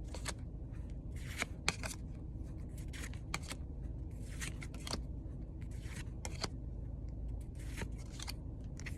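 Pokémon trading cards being flipped through by hand, one card slid off the stack behind another: a run of short, irregular swishes and flicks over a low steady hum.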